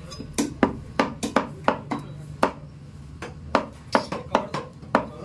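Butcher's cleaver chopping mutton on a chopping block: a quick, uneven run of sharp chops, about three or four a second, with a short pause in the middle.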